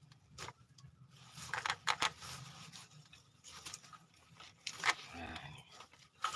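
Lemongrass leaves and stalks rustling and tearing as they are pulled and snapped by hand, with a cluster of sharp cracks about two seconds in, another near five seconds, and one at the end.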